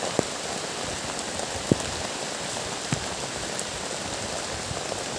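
Steady rain falling, an even hiss, with a few louder single drops or taps standing out.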